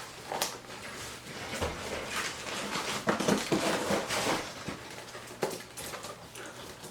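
The box and packed parts of a softbox lighting kit being opened and handled: irregular rustling and scraping with light knocks and clatters.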